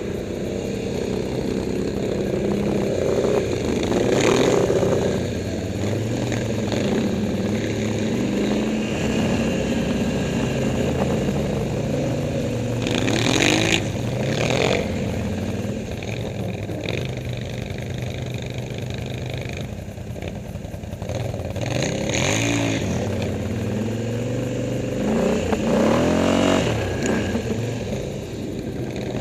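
ATV engines running as the quads ride through snow, revving up and easing off several times, with the strongest revs about four seconds in, around thirteen seconds, and near the end.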